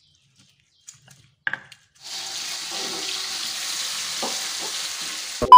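Ground chilli-and-shallot sambal paste sizzling in hot oil in a wok, starting about two seconds in, with a spatula scraping through it as it is stirred. A couple of faint clicks come before the sizzle, and a sharp knock comes at the very end.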